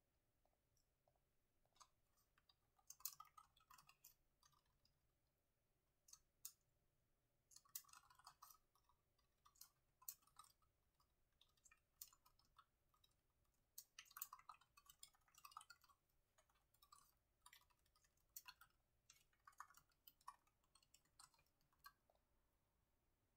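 Faint typing on a laptop keyboard: quick runs of key clicks broken by short pauses.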